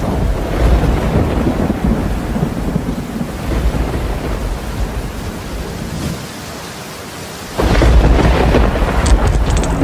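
Thunderstorm sound effect: steady rain with rumbling thunder, then a sudden loud thunderclap about three-quarters of the way in that rumbles on.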